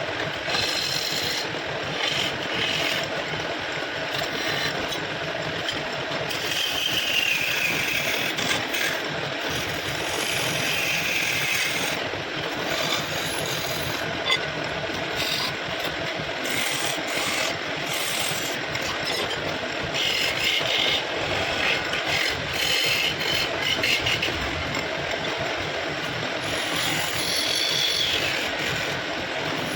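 Wood being shaped by a running power tool: steady machine noise with scraping and rasping against the wood, and brief higher squeals now and then.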